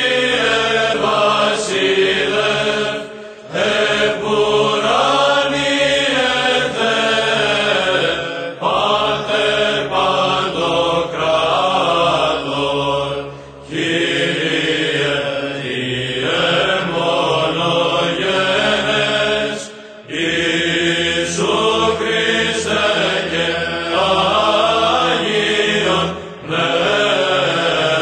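Greek Orthodox liturgical chant: sung Byzantine-style melody in long phrases, broken by short pauses every five or six seconds.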